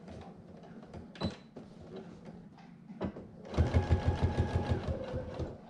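Sewing machine topstitching through faux leather at a long stitch length: a couple of soft clicks, then about halfway in a two-second run of rapid, even stitches over the motor's whine, stopping near the end.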